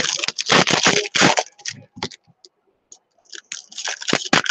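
Foil wrapper of a Topps baseball card pack crinkling and tearing as it is opened by hand, in quick crackly bursts, with a lull of a second or so midway before the crinkling resumes.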